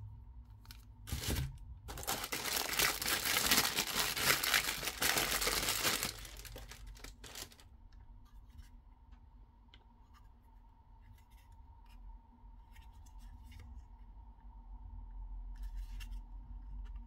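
Packaging being torn open: a short rip, then a loud continuous tearing lasting about four seconds, one more short rip, then scattered light clicks and rustles as it is handled.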